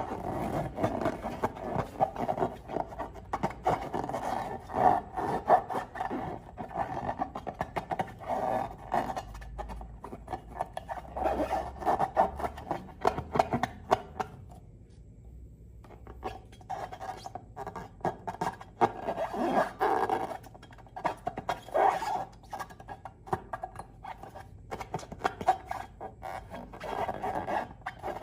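Rubber balloons and slime being squeezed and rubbed by hand: rubbery squeaking and squelching with many small crackles, pausing briefly about halfway.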